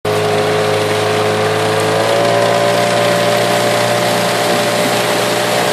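Outboard motor of a coaching launch running steadily, its pitch rising slightly about two seconds in.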